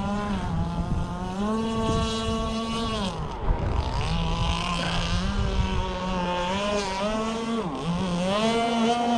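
Gas-powered RC boat's two-stroke engine running out on the water, its pitch rising and falling as the throttle is worked: up about half a second in, down around three seconds, then up again near the end. The boat is running with its clutch shoe pads reversed to cut clutch slippage, and it sounds like it is running well.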